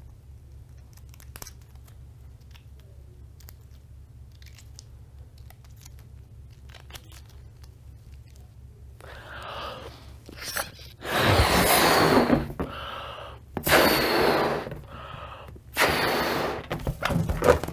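A person blowing up a balloon by mouth: three long, loud breaths blown into it about a second or two apart, with quicker in-breaths between. Before that, faint scattered clicks of the balloon and coin being handled.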